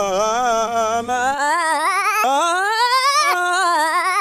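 A single singing voice holding a long wavering note with heavy vibrato. It dips, then climbs steadily in pitch, and drops suddenly about three seconds in before carrying on.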